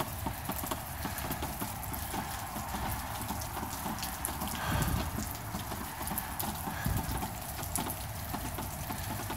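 Rain and hail falling in a storm: a steady hiss full of many small pattering ticks. There are a couple of brief low thumps, about five and seven seconds in.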